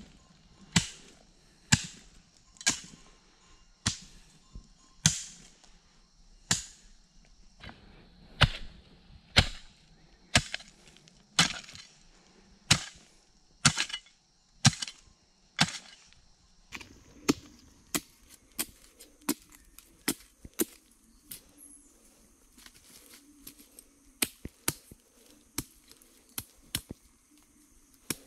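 A metal hoe blade chopping into packed earth and roots, one sharp strike about every second. About halfway through, the strikes turn lighter and come more quickly.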